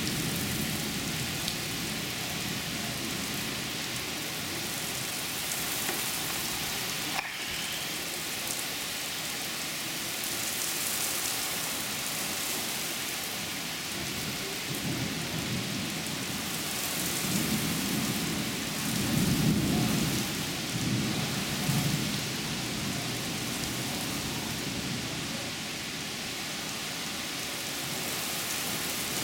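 Heavy rain pouring steadily onto a wooden deck and lawn, with low rumbles of thunder that swell loudest about two-thirds of the way through.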